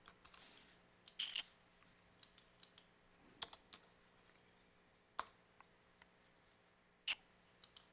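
Faint, sparse computer keyboard keystrokes as a short line of text is typed, single taps and little runs of two to four with pauses between them.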